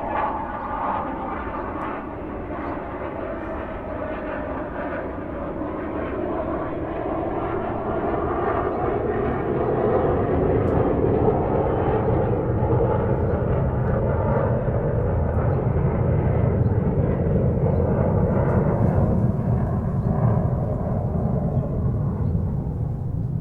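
Airplane engine and airflow noise heard from inside the cabin: a steady, even roar that grows louder and deeper about a third of the way in, then holds.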